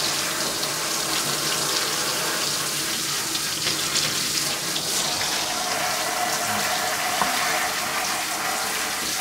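Water spraying steadily from a handheld shower head over hair and into a bathtub as hair bleach is rinsed out.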